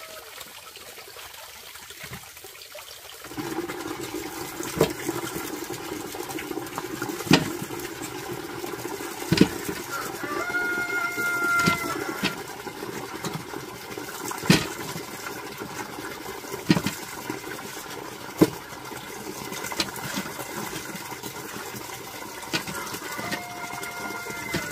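Water running steadily, starting a few seconds in, with a sharp knock every couple of seconds.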